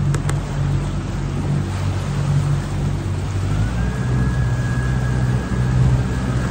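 Yamaha 175 outboard motor running steadily with the boat under way, its low hum over the rush of the wake and wind. A thin steady high whine comes in a little past halfway.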